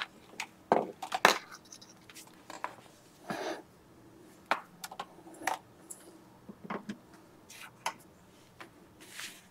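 Handling noise as a Tesla mobile connector's plug and cable are picked up and pushed into an AC outlet on an EcoFlow Delta 2 Max power station: scattered sharp clicks and taps of plastic and prongs, with a few short rustles of the cable.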